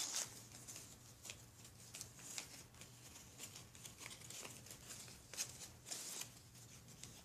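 Faint, scattered rustles and small clicks of hands handling small plastic toys and their packaging, over a low steady hum.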